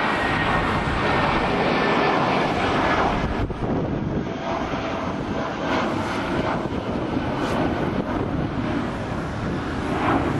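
Airbus A319 jet engines running: a steady rush of jet noise, with a high whine that fades out about three seconds in.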